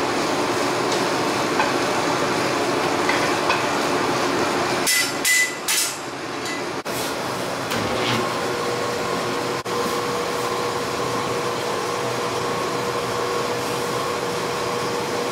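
A steady rushing noise as a freshly lit coal forge fire burns. Then, about eight seconds in, the electric motor of a belt-driven mechanical power hammer is switched on and settles into a steady hum, with the hammer not yet striking.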